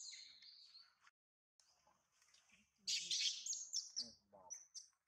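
High-pitched chirping calls: one falling call at the start, then a loud, rapid run of chirps from about three seconds in.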